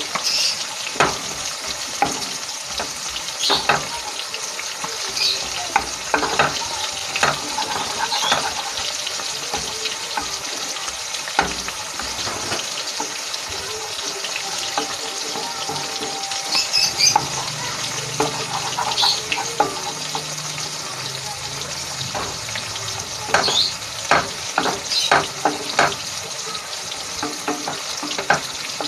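Ground bok-flower paste sizzling in a frying pan as it dries out, nearly done, with a wooden spatula scraping and tapping against the pan again and again.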